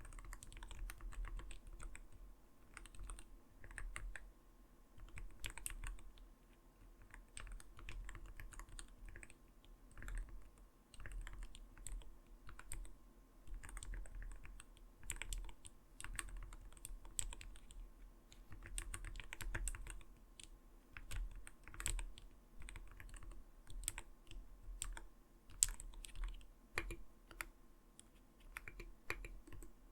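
Continuous typing on an Arbiter Studio Polar 65 mechanical gaming keyboard: a steady, irregular run of soft, muted keystrokes, the "kotokoto" sound.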